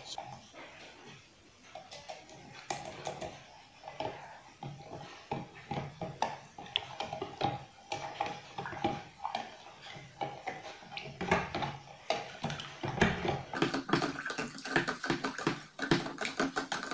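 Long metal spoon stirring yeast and brown sugar into liquid in a tall plastic pitcher to dissolve them, clinking and scraping against the sides in quick irregular taps that grow busier and louder after about ten seconds.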